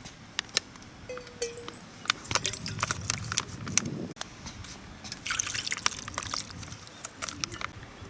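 Cooking in a pot over a campfire: liquid splashing and dripping, with many scattered sharp clicks and taps.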